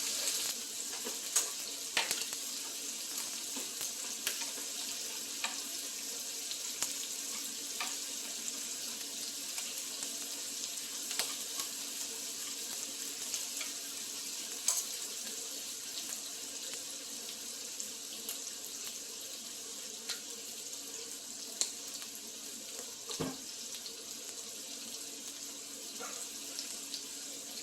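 Food sizzling in a hot pan: a steady high hiss with scattered small pops and clicks.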